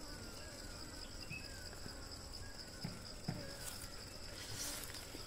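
Steady high-pitched insect chorus from the surrounding vegetation, with two faint soft taps a little past halfway.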